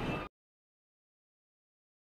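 Silence: a brief trail of background noise cuts off abruptly a moment in, then the soundtrack is completely dead.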